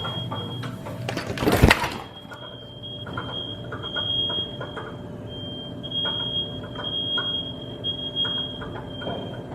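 Smoke alarm sounding continuously with a shrill high tone that pulses in strength, heard through the wall from the neighbouring apartment. About one and a half seconds in, a loud thump briefly covers it.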